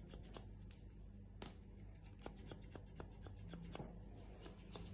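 Scissors snipping close to the microphone: a string of faint, quick clicks at an uneven pace, over a low steady hum.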